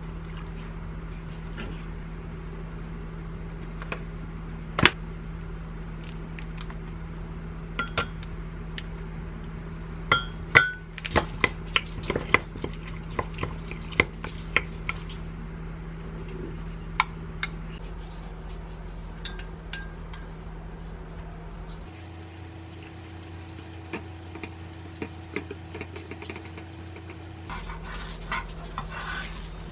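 A spoon clinking and tapping against a glass mug as onion sauce is measured and stirred, with a burst of quick clinks in the middle.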